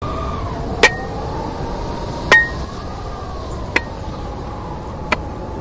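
Four sharp clinking strikes, evenly spaced about a second and a half apart, the first two with a brief ring, over a steady noisy background with faint wavering tones.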